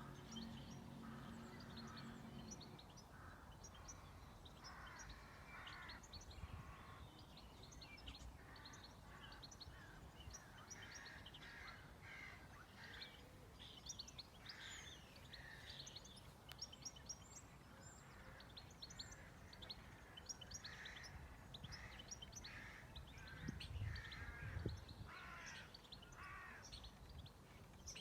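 Faint mixed birdsong: many small birds chirping and twittering, with some harsher calls among them. A low steady hum stops about two and a half seconds in, and there is a brief low rumble near the end.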